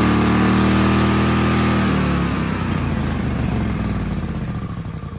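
Go-kart engine held at high revs, driving a Comet 40 series torque converter at full engagement with the belt spinning; about two seconds in the throttle is released and the revs fall away toward idle.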